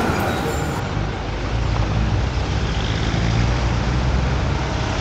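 Road traffic noise: a steady rumble of passing vehicles.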